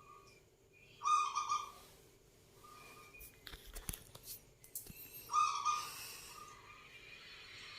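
Zebra dove (perkutut) cooing in a humming voice. There are two phrases about four seconds apart, each a strong coo followed by a shorter, fainter note. A few faint clicks fall between the phrases.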